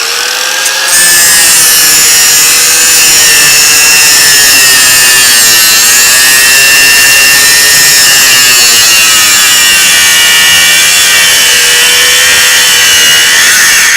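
4.5-inch angle grinder cutting through metal: a loud, steady high whine with grinding hiss, its pitch sagging and recovering as the disc loads, then cutting off suddenly near the end.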